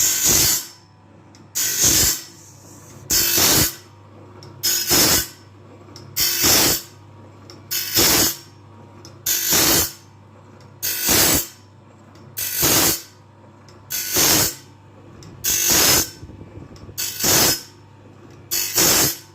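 Sawmill bandsaw-blade sharpener running, grinding the blade tooth by tooth: a short grinding rasp about every one and a half seconds, evenly repeated, over a steady low motor hum.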